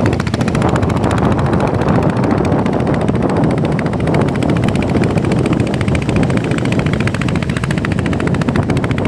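Small river boat's engine running steadily at close range, a loud, rapid, even chugging with water and wind noise mixed in.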